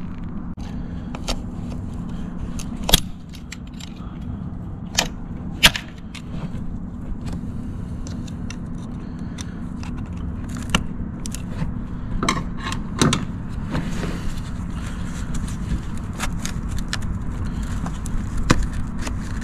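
Scattered sharp clicks and light metallic taps as a pick tool and fingers release the fuel filter's retaining clips and unplug the fuel sensor connector on a Mercedes Sprinter diesel engine. A steady low hum runs underneath.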